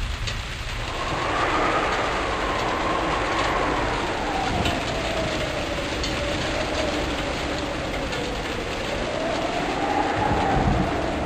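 Typhoon wind howling: a pitched whistle that slowly rises and falls over a steady rush of wind and rain.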